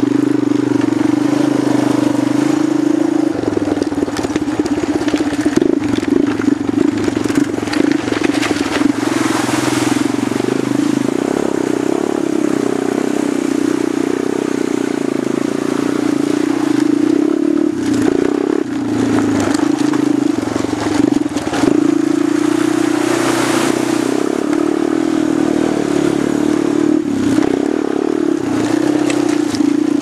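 ATV engine running under throttle as the quad rides over loose gravel, tyres crunching on the stones. The engine note eases off briefly a few times, then picks up again.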